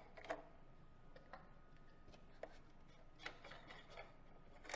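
Faint, scattered clicks and rubbing of plastic parts as the inspiratory and expiratory ports are unscrewed from a Dräger Atlan A350 anaesthesia machine's breathing block and set down on the table.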